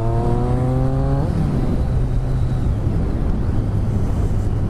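Motorcycle engine pulling up through the revs on the move, its pitch rising steadily until a gear change about a second in, then a steady rush of wind and road noise at cruising speed with the engine running underneath.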